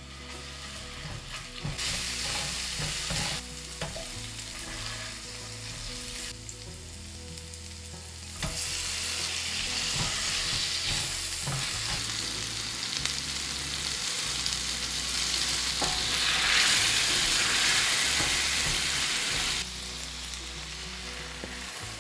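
Oil sizzling in a stainless steel frying pan as garlic and green onion, then shrimp in foaming butter, fry. The sizzling comes and goes, grows louder about a third of the way in, and is loudest near the end before dropping off sharply.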